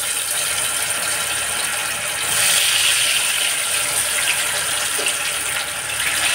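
Batter-coated potato sticks deep-frying in hot oil: a steady, loud sizzle that grows louder about two seconds in as more pieces go into the pan.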